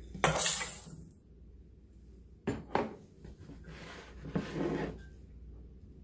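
Dry stuffing mix poured from a glass measuring cup into a stainless steel mixing bowl, a brief rushing rattle of crumbs on metal. Two sharp knocks follow, as glass and metal are set down on the countertop, then a second short rustle near the end.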